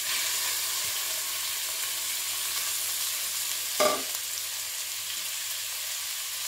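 Boiled radish and radish leaves sizzling in hot mustard oil in a kadhai, a steady frying hiss just after the radish goes in. One short knock about four seconds in.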